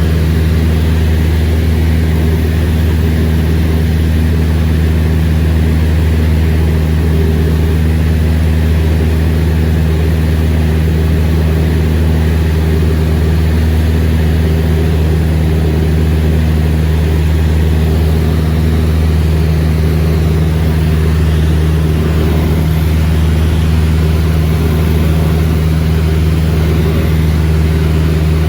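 Cessna 172's piston engine and propeller making a loud, steady drone, with a deep hum and its overtones holding one pitch throughout.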